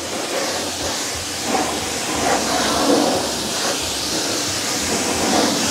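Pressure-washer jet rinsing a pickup truck's tire and wheel: a steady hiss of high-pressure water striking the rubber and rim and splashing off, washing away loose dirt.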